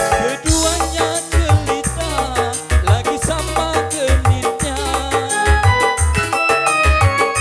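Live dangdut music from an orgen tunggal electronic keyboard: an instrumental passage with a steady, quick drum beat and a melody that bends between notes.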